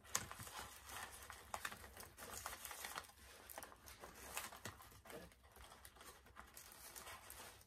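Faint rustling and small scattered clicks of hands handling and opening doll toy packaging.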